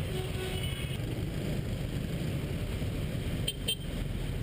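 Steady low rumble of a motorbike riding in dense scooter and car traffic, with engine and road noise and no horns standing out. Two sharp clicks come about three and a half seconds in.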